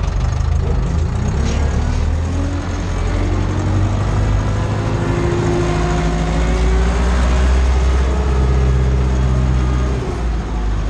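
Ursus C-360's four-cylinder diesel engine running steadily under load as the tractor pulls a cultivator, heard from inside the cab.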